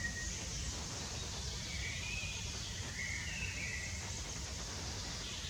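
Young black kite calling: a few short, wavering high calls, at the start, about two seconds in and about three seconds in, over a steady low rumble of wind noise.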